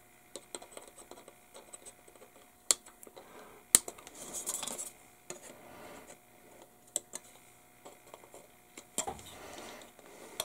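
Side cutters snipping a plastic model-kit part off its sprue: several sharp clicks, the loudest about four seconds in, among the light rattle and rustle of the plastic sprue being handled.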